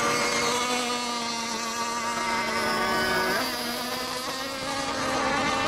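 Several radio-controlled racing boat engines running together with a steady high-pitched whine. The engines ease off and drop in pitch about three and a half seconds in.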